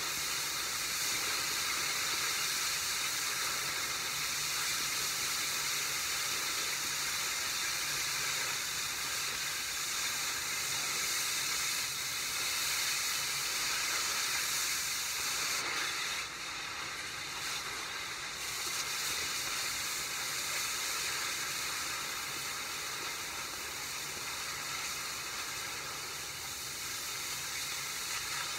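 Oxy-fuel cutting torch burning a hole through a steel forklift fork: a steady hiss of the gas jet, which eases for a couple of seconds a little past the middle.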